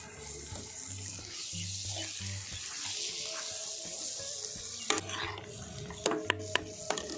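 Water running with a steady hiss, then several sharp clinks near the end.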